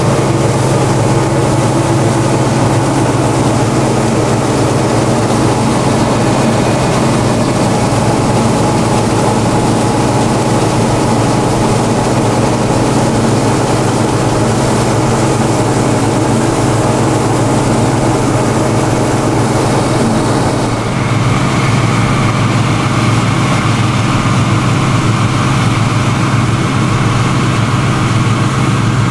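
Combine harvester running steadily with a loud, even low hum. The sound shifts abruptly about three-quarters of the way through.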